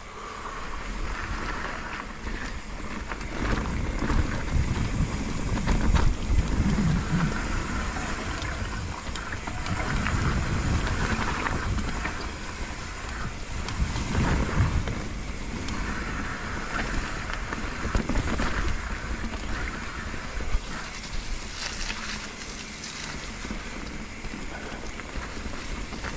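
Mountain bike rolling down a dirt trail: wind noise on the microphone over a low rumble of tyres on rough ground, with scattered small clicks and rattles. The loudness rises and falls as the ride goes on.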